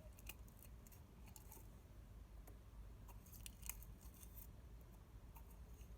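Faint, irregular clicks and crackles of slime being dug out of a plastic container by hand.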